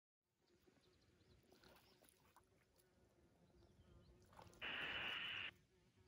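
Harris hawk bathing in shallow lake water: one short burst of splashing, a little under a second long, about two-thirds of the way through, against near silence.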